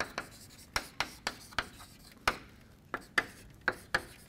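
Chalk writing on a chalkboard: an irregular string of short, sharp taps and scratches as letters are written.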